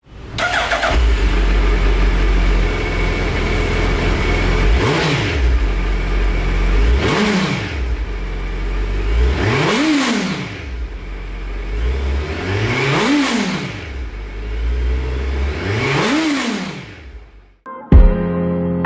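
Suzuki Hayabusa's inline-four engine idling and being revved five times through its twin exhausts, each rev rising and falling in pitch, two to three seconds apart. Near the end the engine sound stops, and a sudden hit leads into music.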